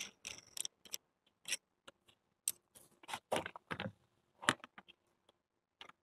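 Irregular light plastic clicks and taps with a little scraping: a plastic toilet seat cover and its metal hinge rod and plastic hinge blocks being handled and fitted together.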